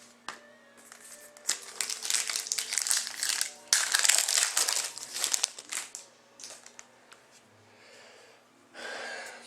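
Crinkling of a foil or plastic trading-card wrapper being handled: dense crackling for about four seconds, then scattered faint crinkles.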